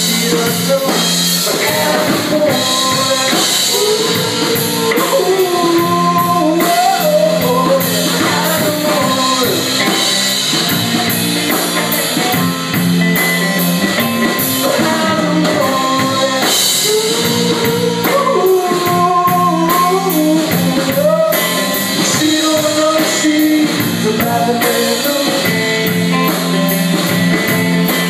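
Rock band playing: drum kit and guitars, with a melodic lead line that bends up and down in pitch over the top.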